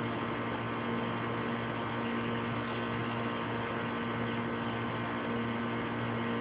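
A steady low mechanical hum with several held tones, even and unchanging throughout.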